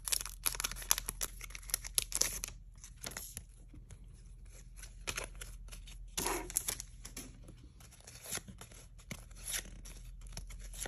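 Scissors snipping open a trading-card pack, its plastic wrapper crackling densely for the first two seconds or so. Then sparser rustles and clicks of cards being handled, with a short louder rustle about six seconds in.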